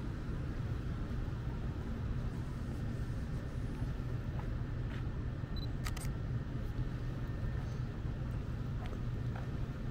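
Steady low rumble of city street ambience, with a few sharp clicks over it, the loudest a double click about six seconds in.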